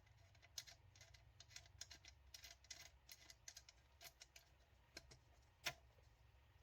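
Faint, irregular light clicks and ticks of small metal caster hardware being handled and fitted by hand, with one sharper click near the end.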